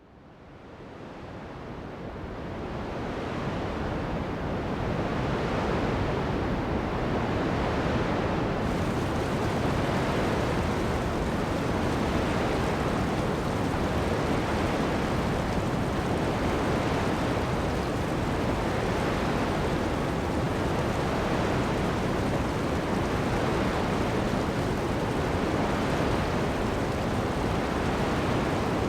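Ocean surf breaking on sand mixed with heavy rain: a dense, steady wash of water noise that fades in over the first few seconds.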